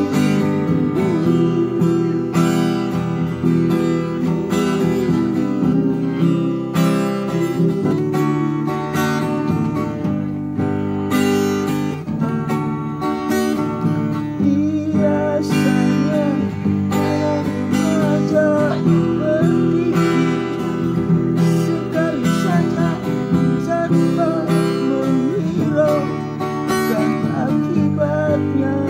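Acoustic guitar strummed steadily in chords, with a man singing along.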